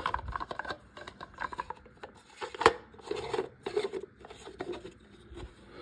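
Plastic clicking and scraping as the drain filter is fitted and twisted back into a washing machine's drain pump housing, with one sharper click about two and a half seconds in.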